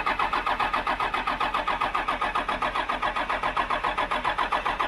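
Dodge Ram 2500's 5.9 Cummins inline-six diesel being cranked over by the starter in a steady, rapid, even rhythm without firing. Fuel is reaching the injection pump, but the injection lines might have air in them.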